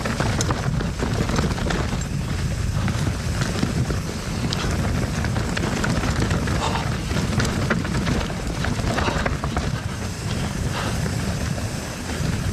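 Steady wind rumble on a GoPro's microphone while riding a steel hardtail mountain bike down a rocky trail, with tyre noise and scattered clicks and rattles from the bike over the rough ground.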